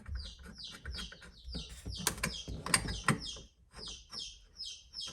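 A bird chirping rapidly, a steady run of short, high, falling chirps several times a second. A few sharp clicks and knocks come about two to three seconds in.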